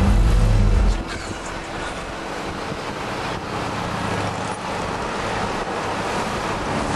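Loud music with a heavy low end cuts off abruptly about a second in. A steady rush of road and traffic noise follows, heard from inside a moving car.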